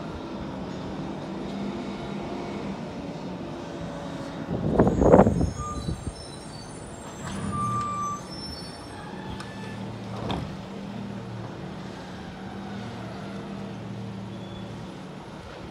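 Peterbilt 320 garbage truck with a McNeilus Autoreach side-loader running at low speed, with a loud air-brake hiss about five seconds in and two short high beeps just after. From about seven seconds the engine settles into a steady hum as the automated arm reaches out and lifts a cart.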